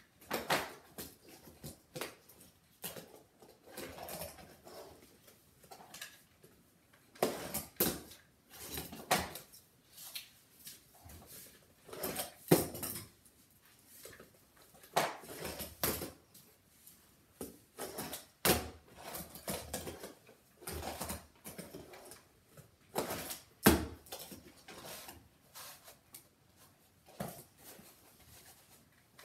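Fingerboard clattering on homemade cardboard ramps: irregular clacks and knocks as the small board's deck and wheels hit and land on the cardboard, with short rolling stretches in between.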